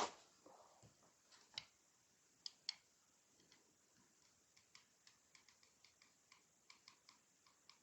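Faint, scattered clicks and taps from handling an AR-pattern rifle while setting up a trigger-pull test, with a few sharper clicks early and a run of small ticks in the second half.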